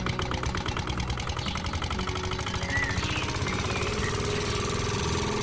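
Miniature belt-driven toy chaff cutter and its model engine running with a fast, even mechanical rattle while grass is fed into it.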